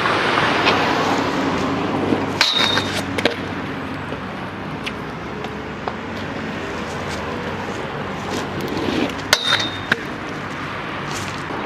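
Stunt scooter hitting a metal handrail twice, each knock followed by a short metallic ping, with a few lighter clicks between, over steady road traffic noise.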